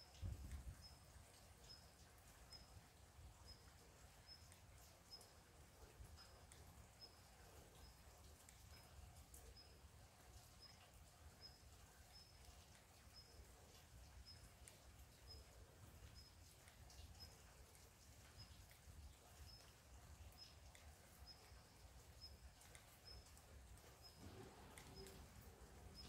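Faint forest rain ambience: scattered light drips over a low rumble, with a short, high chirp from a bird or insect repeating about once a second.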